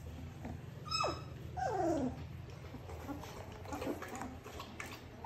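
Three-week-old Labrador puppies whimpering: two short squeals that fall in pitch, about one and two seconds in, and a fainter one near four seconds, over a steady low hum.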